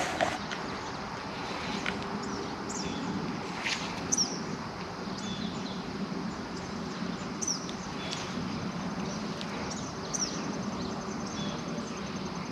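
Outdoor ambience with a small bird giving a short, high, downward chirp every second or two, over a steady low background hum.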